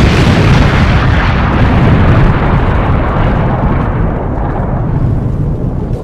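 Wind buffeting the microphone: a loud, deep, uneven rush of noise that eases a little in the second half.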